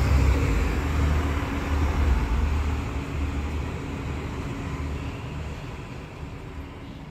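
Irish Rail diesel multiple-unit train running across a steel girder bridge, a low rumble with a steady engine hum that fades as the train moves away.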